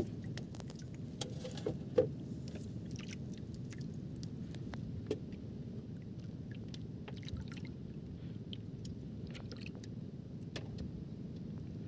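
Steady low wash of water and wind around a small outrigger fishing boat on the sea, with scattered faint clicks and one knock about two seconds in.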